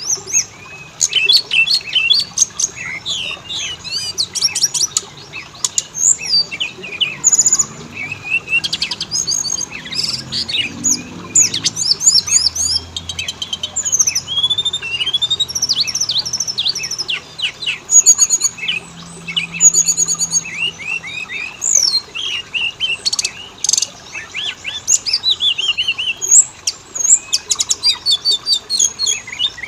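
Oriental magpie-robin (kacer) singing continuously: a fast, varied string of high whistles, chirps and sweeping notes with hardly a pause.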